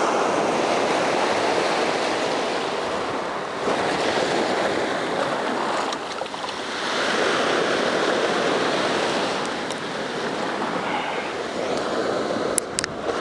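Surf breaking and washing up a sandy beach, swelling and easing off in surges, with a couple of sharp clicks near the end.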